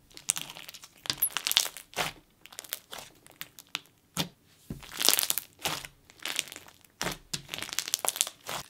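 Thick slime packed with foam beads being squeezed and pressed by hand: irregular bursts of crunching and crackling, with small bubble pops, from the foam beads and trapped air, one or two squeezes a second.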